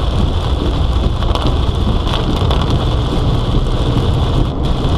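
Rain drumming on a moving car, over the steady low rumble of the car and its tyres on a wet road, with a few separate drop taps standing out.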